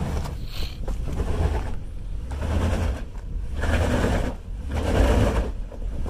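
Jeep Grand Cherokee engine working under load as it crawls up a steep rock ledge, a steady low rumble, with repeated bursts of scraping and grinding as the tyres and wheels scrub against the rock.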